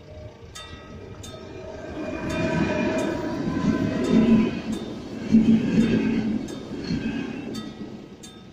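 A ČD class 471 CityElefant double-deck electric commuter unit passes the level crossing: its running and wheel noise swells about two seconds in, is loudest around four to six seconds, and fades away near the end. Over it, the crossing's classic mechanical warning bell rings in single strokes about every 0.7 s, heard clearly at the start and again near the end.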